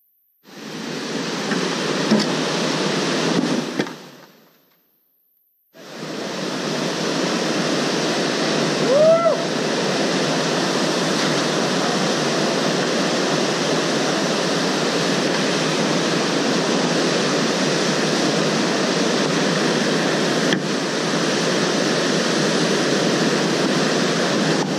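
Whitewater rapids rushing, a loud steady wash of water that breaks off for about two seconds near the start and then runs on unchanged. About nine seconds in there is one brief rising-and-falling chirp.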